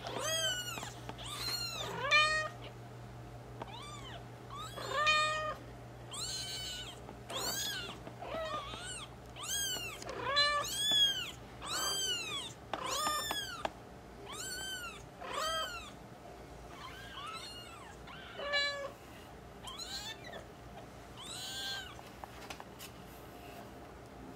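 Eight-day-old kittens mewing: a steady run of short, high-pitched cries that rise and fall, about one a second, thinning out near the end.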